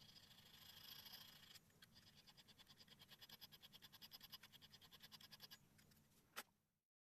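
Faint rasping of a small hand file across a brass part, smoothing away milling marks: a scratchy patch, then rapid short strokes at about five a second that stop a little before the end, followed by one light click.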